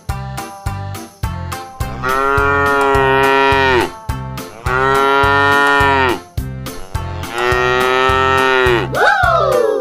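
Three long cow moos from an animal toy's sound, each dropping in pitch at the end, over upbeat background music with a steady beat. A short rising-then-falling call follows near the end.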